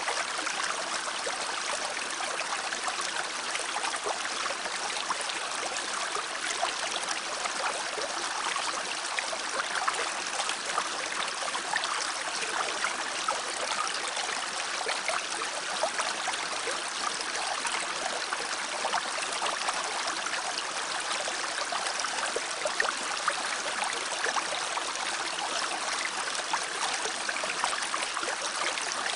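Stream running: a steady rush of flowing water over stones.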